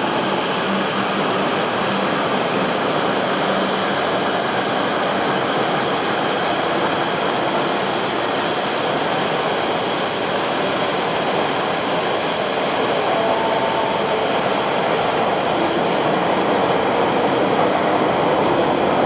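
Out-of-service Shinkansen train moving along the platform track, a steady rushing noise of a high-speed train running slowly through the station that grows slightly louder near the end.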